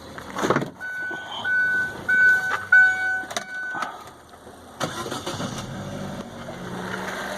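A run of five short, high electronic beeps about a second in. About five seconds in, the Chevrolet Aveo T250's engine starts and settles into a steady idle. Its crankcase ventilation valve is bypassed and the hose plugged, and no air-suction whistle is heard.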